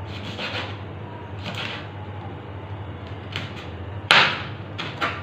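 Kitchen things being handled while getting almonds ready for a garnish: a few short scrapes and rustles, and one sharp clack about four seconds in that is the loudest sound, over a steady low hum.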